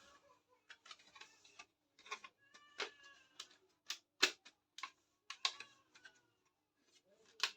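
Irregular light clicks and taps of small hard miniature toy kitchen pieces being handled and set down. Some leave a brief ringing tone. The loudest tap comes a little past the middle.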